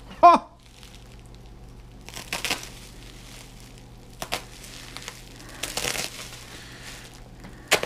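Plastic shipping mailer and bubble wrap crinkling and rustling in a few short bursts as the wrapped item is pulled out, with a couple of sharp clicks.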